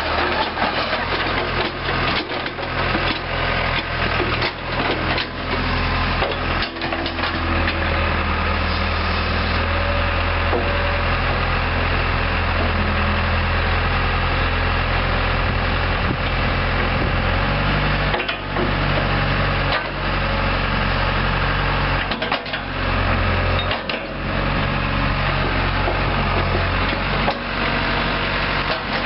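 John Deere 190E excavator's four-cylinder diesel engine running steadily. The engine note changes about two-thirds of the way through.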